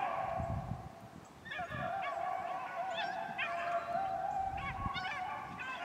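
A pack of beagles baying as they run a rabbit's scent. Several dogs' long drawn bawls and short chop notes overlap. The cry fades briefly about a second in, then picks up again.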